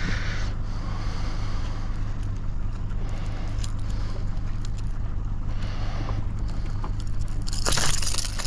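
Boat engine running steadily with a low hum, under a haze of wind and water noise. Near the end comes a short, louder rush of noise.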